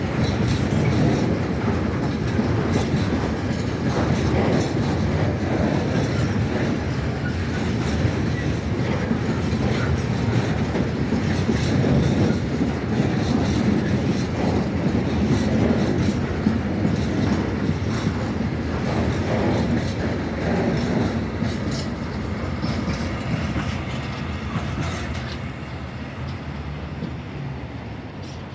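Freight train of empty wagons rolling past, the wheels clattering over rail joints in a steady run of clicks and knocks. The sound fades over the last few seconds as the train moves away.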